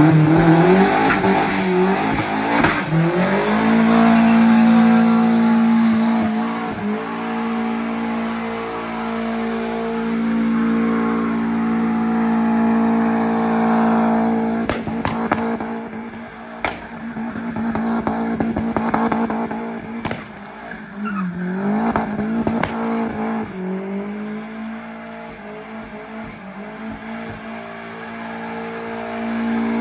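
2004 Mazdaspeed Miata's turbocharged four-cylinder through a side-exit straight pipe, revving hard while doing donuts, with the rear tyres spinning and squealing. The engine pitch climbs steeply in the first few seconds, then holds high and steady, dropping and picking back up twice about two-thirds of the way through.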